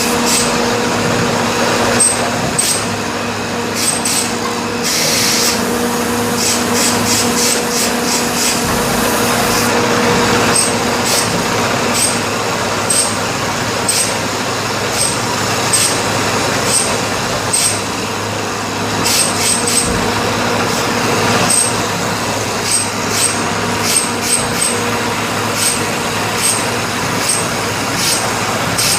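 Borewell drilling rig running: a steady, loud machine drone with a constant hum, overlaid by frequent irregular sharp metallic clicks.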